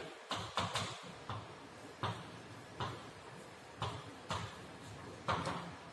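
Chalk writing on a blackboard: a string of short, irregular ticks and taps as each stroke of chalk strikes and scrapes the board.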